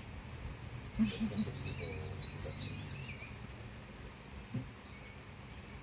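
Birds chirping: a quick run of short, high, falling notes about a second in, then a rising whistle, over a low steady rumble.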